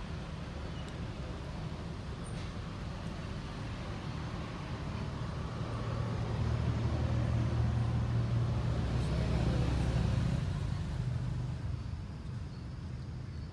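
A motor vehicle passing by: a low engine rumble that swells about six seconds in and fades away by about twelve seconds, over steady outdoor background noise.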